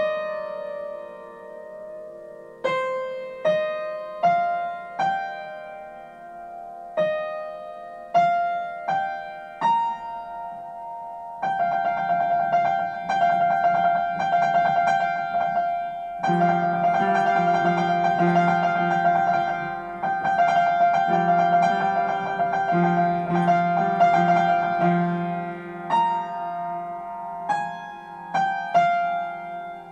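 Upright piano playing a slow solo piece: single melody notes with short pauses at first, then, about a third of the way in, a fuller and louder passage of rapid repeated notes over sustained low notes, thinning back to separate notes near the end.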